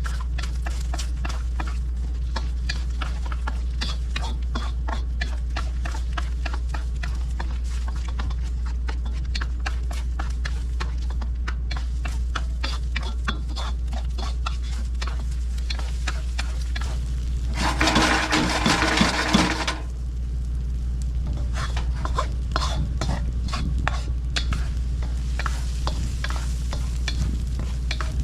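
Eggs frying in smoking-hot peanut oil in a wok, a utensil clicking and scraping against the pan as they are stirred, over a steady low hum. About two-thirds through, a louder noisy burst lasts about two seconds.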